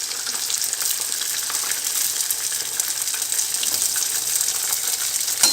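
Whole masala-battered koduva (barramundi) fish frying slowly in hot oil on a medium flame: a steady crackling sizzle, with a single sharp click near the end.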